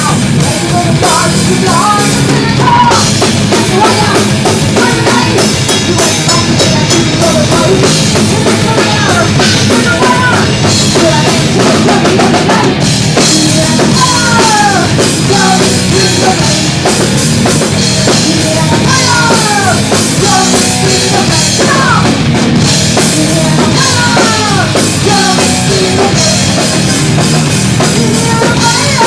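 Live thrash metal band playing loud: fast drumming with distorted electric guitars and bass, and high notes that slide downward over it again and again.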